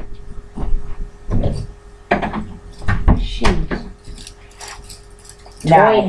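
Toy metal handcuffs jingling and clinking as they are handled, between short indistinct bits of voice.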